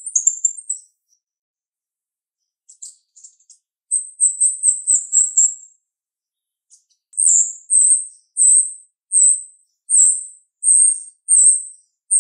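Female jalak rio-rio myna calling in very high, sharp notes. A fast chattering run gives way to a brief pause and a quick series of notes, then a steady repeated call of short piercing notes, about one and a half a second.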